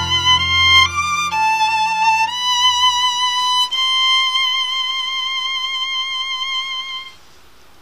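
Solo violin playing a slow melody: a few short stepping notes, then long held notes with vibrato, stopping about seven seconds in. A low sustained accompaniment underneath fades out in the first three seconds.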